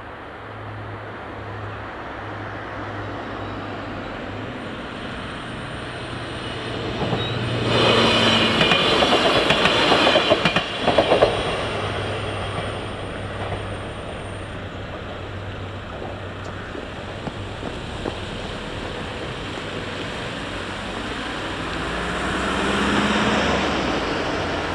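Arriva Coradia LINT diesel railcar passing over the level crossing about eight seconds in, loud for around four seconds with wheel clatter over the rail joints. A steady pulsing crossing warning tone sounds under it, and road traffic swells near the end.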